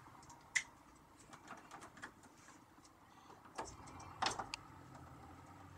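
A few faint plastic clicks and handling rustles from a clip-on current sensor being opened and snapped closed around a wire, the loudest click just over four seconds in.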